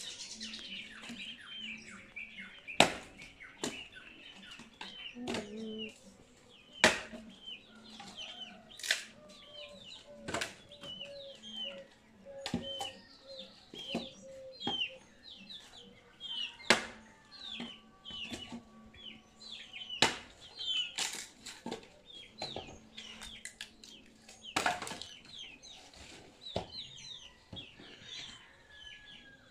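Axe striking firewood logs, single sharp blows every two to four seconds, over a bird chirping over and over in short falling notes.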